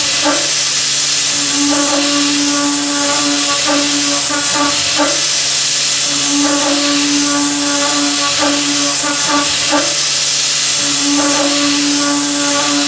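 Milling machine at work during high feed milling: a loud steady hiss over a running hum, with a humming tone that comes in for about two seconds at a time and then drops away, three times, along with scattered light clicks.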